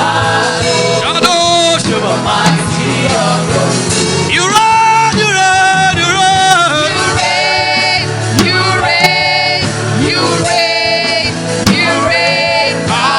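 Gospel worship music: voices singing a slow, sustained chorus over instrumental backing with a steady beat.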